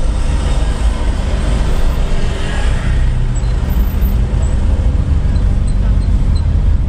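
Car driving slowly in city traffic: steady low engine and road rumble with tyre noise.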